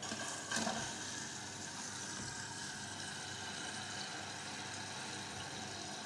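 Water running steadily as it flows in through an LG front-loading washer-dryer's pre-wash inlet valve, opened by the machine's test mode. A short knock about half a second in.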